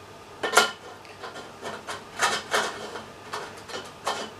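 Round aluminium joiner tube sliding and knocking inside a square aluminium antenna boom, metal scraping and clinking on metal. A sharp knock about half a second in is the loudest, followed by several lighter clinks and scrapes.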